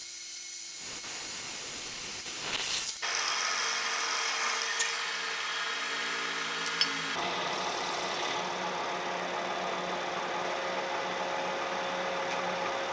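A drill bit cutting into a steel vise jaw on a milling machine: a steady spindle run with the grinding rub of the cut. The sound changes abruptly about three and seven seconds in.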